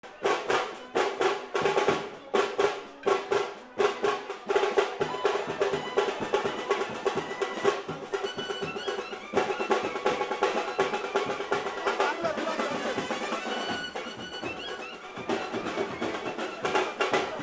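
Music led by fast drumming: loud, hard strikes in quick clusters for the first few seconds, then a denser, more even beat.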